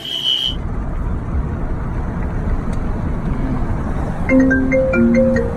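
A high electronic beep ends just after the start, then a steady low rumbling noise, like a vehicle or wind on the microphone, with a short tune of a few pitched notes from about four seconds in.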